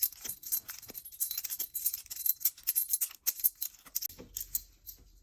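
Small metal planner discs rattling and clinking against each other as they are handled, a quick run of light jingling clicks.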